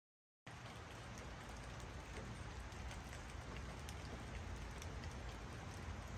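Steady outdoor background noise with a low rumble and scattered faint ticks, cutting in abruptly about half a second in after dead silence.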